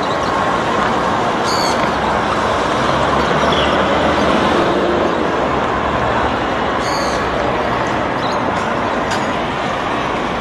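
Busy city street traffic: a steady din of passing vehicles, with a low engine hum coming in about three seconds in and two brief high-pitched squeaks.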